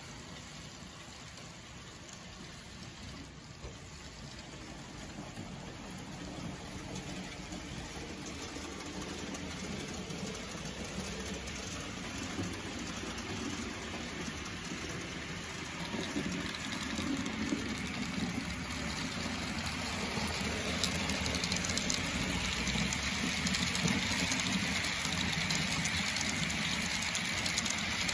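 HO scale model freight train running along the track: a steady rolling noise of wheels on rails that grows gradually louder.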